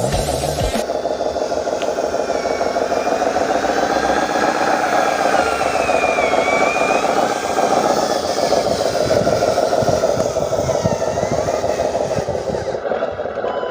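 Remote-control truck's electric motor and gearbox whining steadily under load on a steep climb, the pitch drifting up and down with the throttle.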